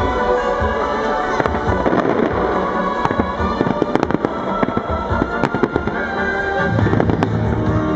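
Aerial fireworks bursting and crackling, with many sharp cracks and bangs in quick succession that are thickest in the middle of the stretch, over music playing throughout.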